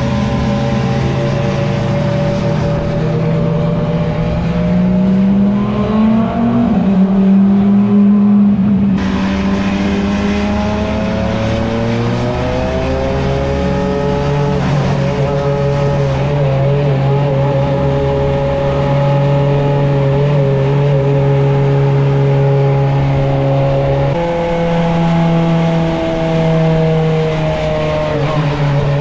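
Engine note of the Lamborghini SC63 race car's twin-turbo V8 running close behind a moving minivan, mixed with the van's own running. The pitch climbs over a few seconds, then settles into a steady drone that shifts abruptly twice.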